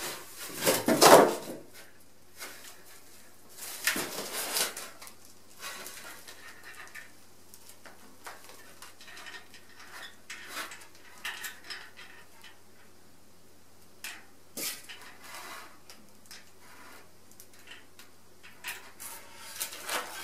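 Packing being handled as a plastic-wrapped spoked wheel is pulled out of a cardboard box: rustling film, foam blocks and cardboard scraping and knocking. The loudest clatter comes about a second in, another near four seconds, with a sharp click about halfway through.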